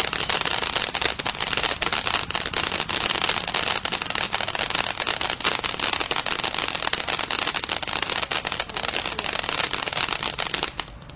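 Big Fireworks 'Lost World' (BF2517) ground fountain burning: a steady rushing hiss of spraying sparks thick with rapid crackling. It dies away suddenly near the end as the fountain burns out.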